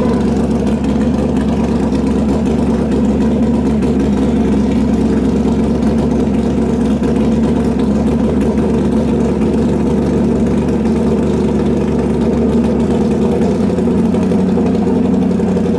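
Drag-racing motorcycle engine idling steadily, an even note with no revving.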